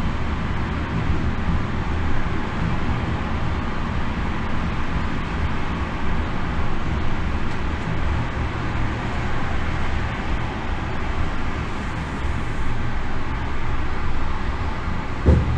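Steady running noise inside an electric locomotive's cab on the move: a low steady hum over wheel-on-rail rumble, with a single thump near the end.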